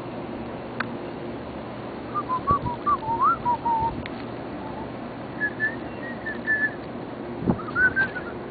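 A person whistling short notes in a few loose phrases, the later ones higher, over a steady low hum.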